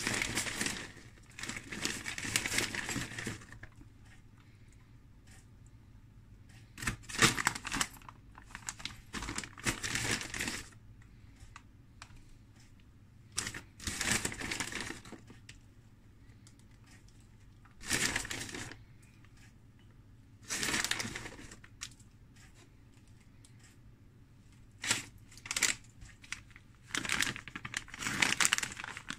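Plastic bag of grated cheese crinkling and rustling in short bursts, a few seconds apart, as it is handled and shaken out over the pizza.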